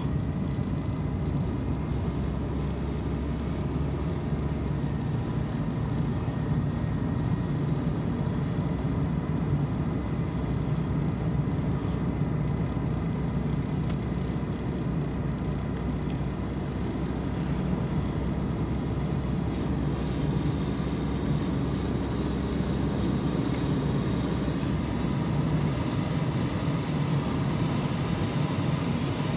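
Inside the cabin of a 1994 Toyota Camry on the move: its 2.2-litre four-cylinder engine running steadily, mixed with road and tyre noise.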